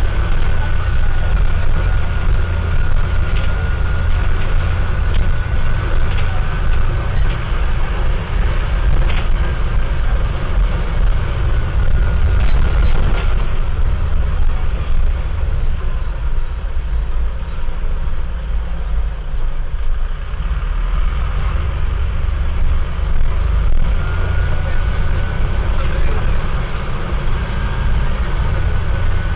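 Mercedes-Benz OM904LA turbo-diesel engine of a city bus running under way, heard from inside the bus as a steady low drone. Over it sits a thin, steady whine from the air-conditioning pulley and compressor, which partly masks the engine; the whine fades out for several seconds around the middle and comes back near the end. A few faint clicks.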